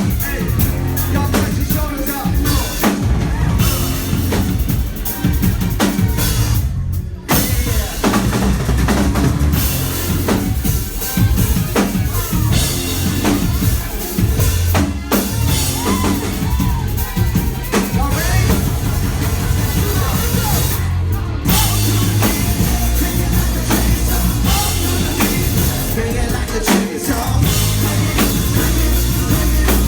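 Live rock band playing loud, driven by a drum kit with pounding bass drum and snare over a heavy bass line; the music thins out briefly twice, about seven and twenty-one seconds in.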